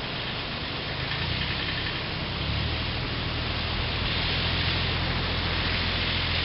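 Yanmar YM169 compact diesel tractor engine running with a steady low throb, growing louder about two seconds in, over a steady hiss.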